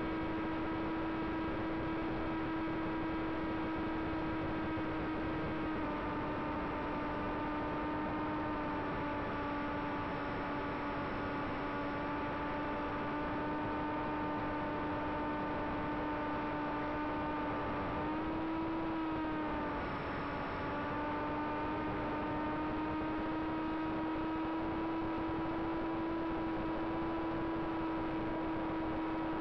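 Electric motor and propeller of an FT Explorer RC plane in flight, heard from its onboard camera: a steady whine over a hiss of wind. The pitch dips slightly about six seconds in, rises and falls briefly near the middle with throttle changes, then slowly climbs.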